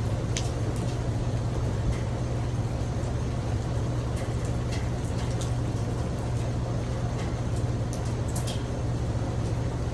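Steady rain falling on a tin roof: a dense, even hiss over a low rumble, with scattered sharper drops landing close by.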